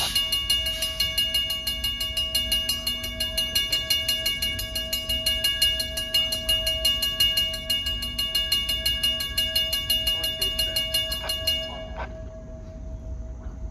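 Railroad grade-crossing bell ringing in fast, even strokes as the crossing gates lower, then cutting off suddenly about twelve seconds in once the gates are down, with a low rumble underneath.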